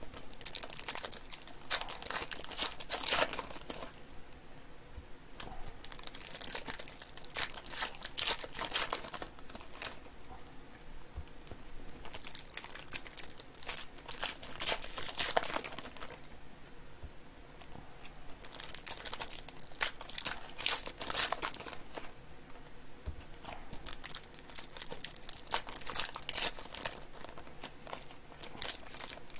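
Foil trading-card pack wrappers crinkling and tearing as they are ripped open by hand, in about five bursts of a few seconds each with quieter gaps between.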